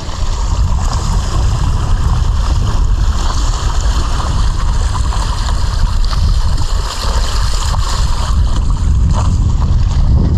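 Wind buffeting the microphone and water rushing past the hull of a sailboat underway: a steady low rumble with a hiss over it.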